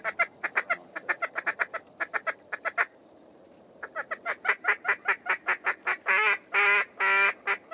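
Duck calling in quacks: a fast, even run of short quacks, a short pause, a second run, then two longer drawn-out quacks near the end, most likely a hunter blowing a hand duck call at passing ducks.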